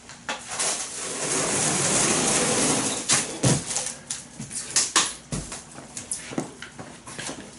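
Clear plastic stretch wrap being pulled from the roll and worked around a cardboard box. A long hiss of film unrolling for about two seconds, then scattered crackles and taps of plastic against cardboard.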